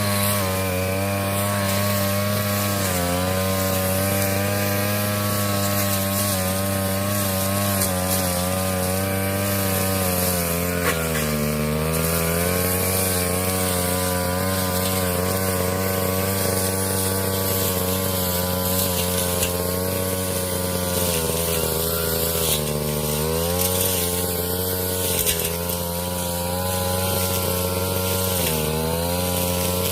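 Brush cutter's small petrol engine running at high revs. Its pitch dips briefly about four times, around 3, 11, 23 and 28 seconds in, as the engine bogs under the load of the blade cutting grass.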